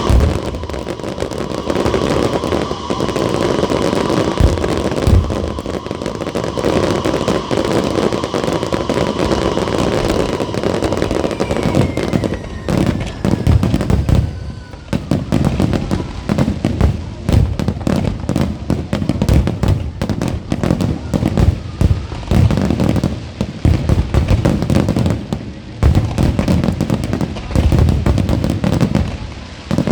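Aerial fireworks display: a dense run of bangs and crackling, with whistles falling in pitch in the first half, then rapid-fire reports for the rest.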